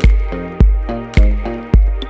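Dance music with a heavy kick drum on a steady beat, a little under two beats a second, under sustained synth chords that shift between the beats.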